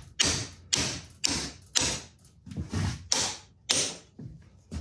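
A heavy mallet repeatedly striking a steel shaft held in a bench vise, about two blows a second, driving the shaft into a press-fit gear. Each blow is a sharp knock with a brief metallic ring.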